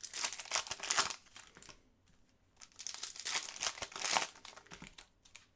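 Crinkling and tearing of a trading card pack wrapper being opened by hand, in two stretches of crackling with a short pause between.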